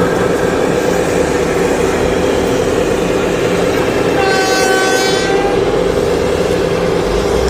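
A steady mechanical running sound, with a horn sounding a little past halfway for about a second and a half, its pitch sagging slightly.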